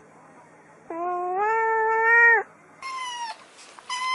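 A cat meowing: one long, drawn-out meow about a second in, followed by a shorter, higher-pitched meow near the end, with another just starting.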